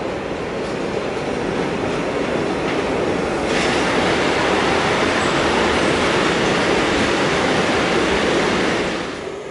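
Freight train hauled by a Green Cargo Rc-family electric locomotive passing at speed, with the steady rolling rumble and rail noise of its silo wagons. It gets louder about a third of the way in as the wagons pass close, then cuts off suddenly near the end.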